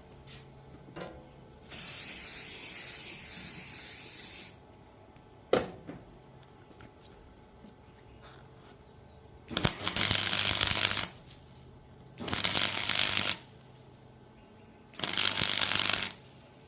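Gasless flux-cored MIG welder laying tack welds: four bursts of arc noise, the first about three seconds long and the others a second or so each. A single sharp click comes between the first and second bursts.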